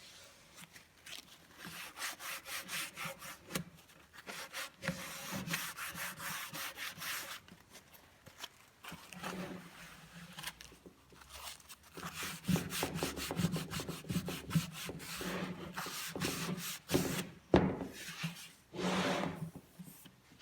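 Wood rubbing and scraping as cabinet parts are worked by hand, in uneven runs of quick strokes with short pauses and a few knocks.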